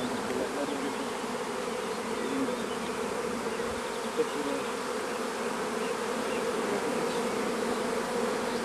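Steady hum of many honey bees flying around an open hive whose comb frames are being lifted out for inspection.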